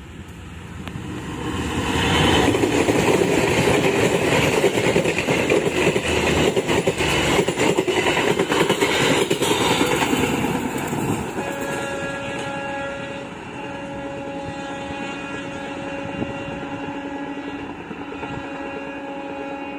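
Diesel-hauled passenger train running through without stopping, loud as it passes, its wheels clicking over the rail joints. As it draws away, a train horn sounds three long, steady blasts.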